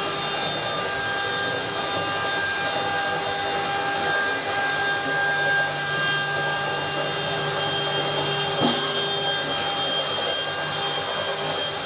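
Woodworking CNC carving machinery running steadily: a constant motor whine with several steady tones over a hiss, with one short knock about nine seconds in.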